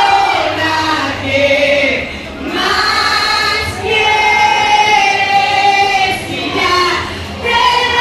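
A woman singing live into a handheld microphone, amplified through a PA, in long held notes with short breaks between phrases.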